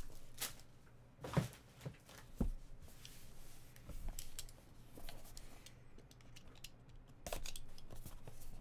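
Handling of a cardboard trading-card box: a few sharp knocks as it is set down and handled on the table, then a stretch of scraping and cutting near the end as a box cutter is worked along its seal.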